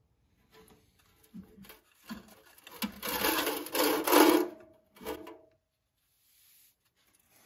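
Metal drain pan scraped across a concrete floor. A few light scrapes build to a loud stretch of scraping, which ends with a brief squeal.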